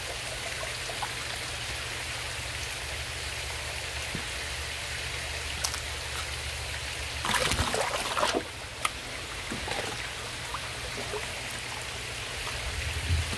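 Koi pond water running and trickling steadily, with a low hum underneath, and a short burst of splashing about seven seconds in.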